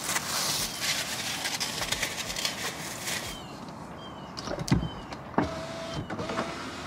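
A 2022 Kia K5's power window running for about three seconds, then stopping. A few light clicks and knocks follow.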